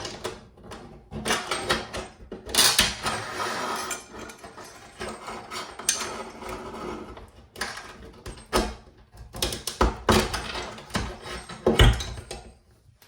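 Irregular clattering, scraping and knocking of metal tap parts and tools being handled at a stainless steel kitchen sink while an old tap is taken off and a lever tap fitted. Two sharp knocks near the end are the loudest.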